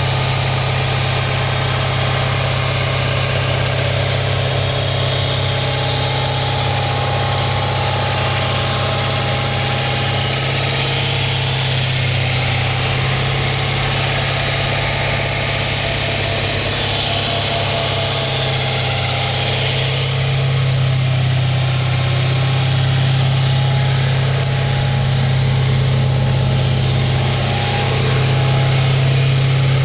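A 2004 Audi S4's 4.2-litre V8 idling steadily, with the knock at idle that the owner is chasing. It gets slightly louder in the last third.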